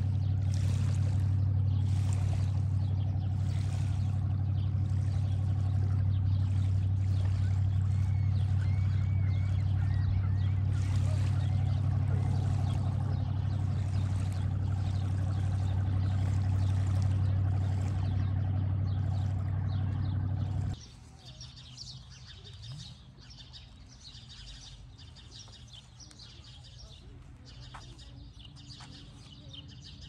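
A steady low rumble with a rushing haze over it, which cuts off abruptly about two-thirds of the way through. After that, birds chirp against a much quieter outdoor background.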